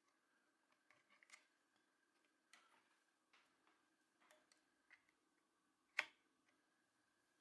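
Faint clicks and taps of plastic cable connectors being handled and plugged into a 3018 CNC router's control board, with one sharper click about six seconds in as the DC barrel power plug is pushed into its jack.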